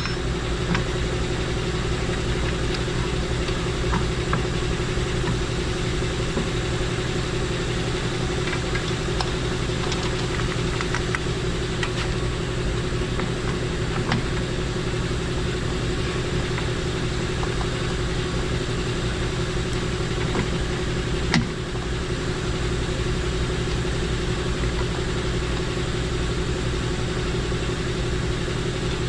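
A steady motor hum throughout, with scattered light metallic clicks and one sharper knock about 21 seconds in, from hub bolts being started by hand into the Jeep Patriot's rear hub from behind.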